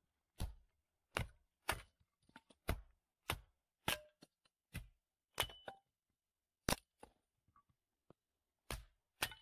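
Axe blows splitting small pieces of firewood for a wood stove: about eleven sharp, separate strikes at an uneven pace, a few with a short metallic ring, with a longer pause just past the middle.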